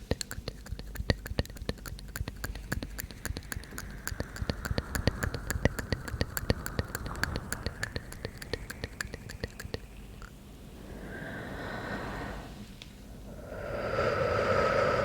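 Close-miked ASMR mouth sounds: a long, rapid run of wet mouth clicks, many a second. About ten seconds in this gives way to two breathy exhales into the microphone, the second louder.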